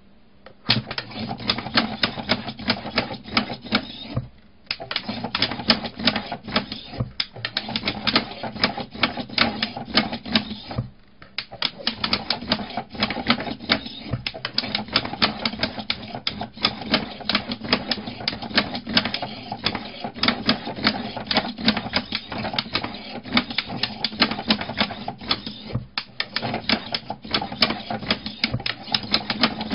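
A useless machine's servo-driven lid and flipper arms clattering and its toggle switches clicking in a fast, continuous rattle, broken by brief pauses about four, eleven and twenty-six seconds in.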